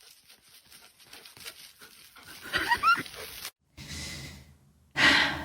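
A dog whimpering, a few short rising whines among faint taps and rustles, followed by a brief loud rush of noise near the end.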